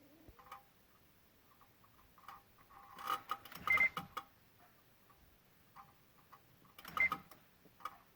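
Irregular electrical clicking from the area of the PCM and VSA control module of a 2016 Honda Odyssey with the engine off, coming in clusters about three to four seconds in and again around seven seconds. It goes with the fault that has the engine, VSA, LDW and FCW warning lights on.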